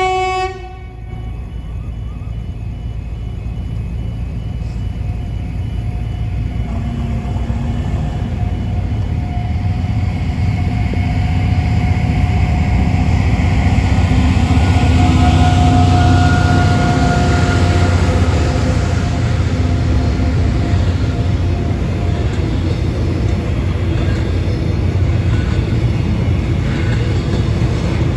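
A short horn blast from the Pacific National freight train, then the diesel locomotive's low rumble building steadily as it nears and passes the level crossing, with a held whine over it, and the train's tank wagons rolling past near the end.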